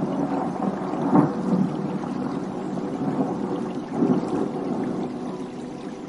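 Thunder rumbling: a sudden loud crack at the start, more loud swells about a second in and about four seconds in, then dying away near the end. Soft steady piano tones sound faintly underneath.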